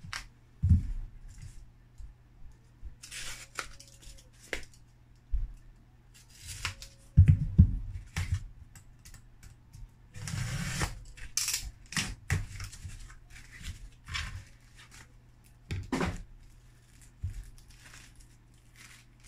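Handling noise in scattered bursts: small cardboard boxes moved and opened, clear plastic sleeves rustling, and hard plastic graded-card slabs clicking and knocking as they are lifted out.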